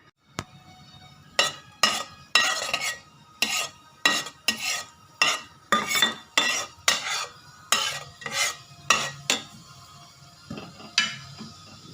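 Metal utensil stirring and scraping in a cooking pan, a quick series of short scrapes about two a second, pausing briefly before two more near the end.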